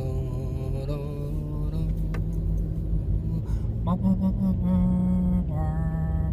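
A low voice hums slow, held notes that step upward in pitch, the highest near the end. A steady low rumble runs underneath.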